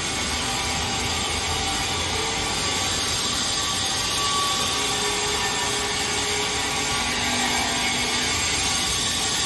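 Airport luggage trolley rolling across a tiled floor, its wheels giving a steady rolling rattle.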